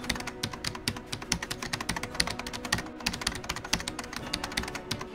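Keyboard typing sound effect: rapid, uneven key clicks, several a second, laid over text being typed out on screen.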